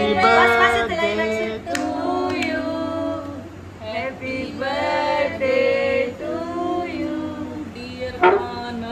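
Voices singing a song together, with long held notes. A brief sharp knock about eight seconds in.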